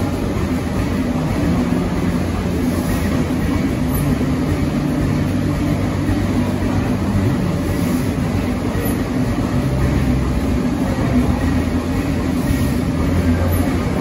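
Vintage stationary engine running steadily: a loud, even mechanical rumble with no change in speed.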